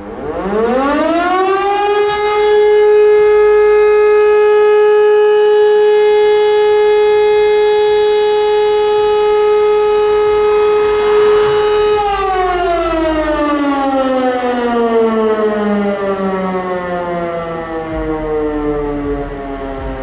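Electromechanical air-raid-type siren sounding the German fire brigade alarm (Feueralarm). It winds up to a steady tone within about two seconds, holds it for about ten seconds, then winds down in a long falling glide. This is one of the steady tones of the fire alarm signal that calls out the volunteer fire brigade.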